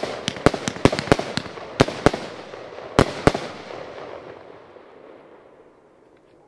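A 120-shot fireworks display cake (Lesli King of Siberia) firing its last shots. About ten sharp bangs come quickly in the first two seconds, then a final pair about three seconds in, all over a dense hiss of burning silver stars. The hiss dies away over the last few seconds.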